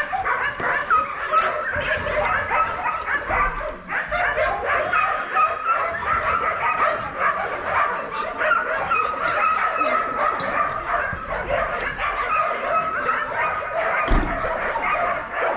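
Many dogs barking at once, a dense, unbroken din of overlapping barks.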